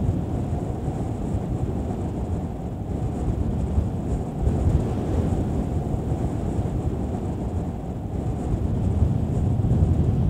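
Strong winter storm wind buffeting the microphone, a low rumble that rises and falls in gusts.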